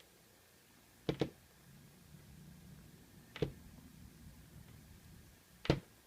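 Three light clicks about two seconds apart, the first a quick double, as small metal lock parts are taken out of a euro cylinder and set down on a hard surface, with faint handling noise in between.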